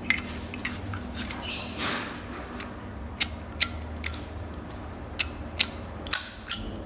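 Metal Zippo lighter being handled: light scraping, then sharp metallic clicks and clinks, mostly in pairs about half a second apart, some with a short ring.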